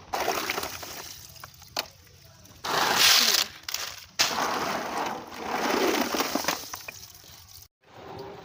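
Walnuts in their shells clattering against a plastic colander and drum as they are scooped out and tipped, in several noisy bursts, the loudest about three seconds in, with some water splashing.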